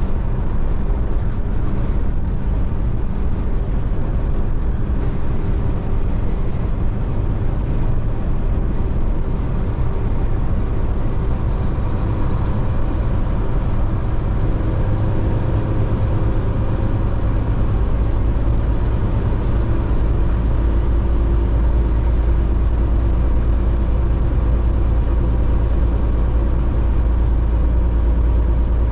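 Steady road noise of a car driving at highway speed: a continuous low rumble of tyres and engine with a hiss above it, the rumble getting louder about halfway through.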